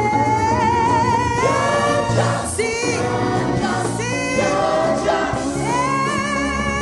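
Gospel choir singing with female lead voices on microphones, the leads holding long notes with vibrato and sliding between pitches.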